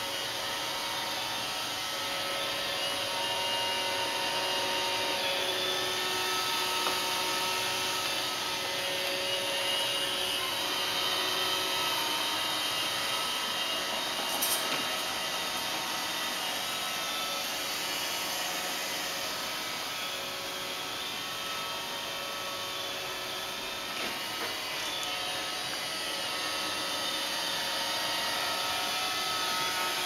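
Roomba robot vacuum running on carpet: a steady motor whine whose tones shift now and then, with a single short click about halfway through.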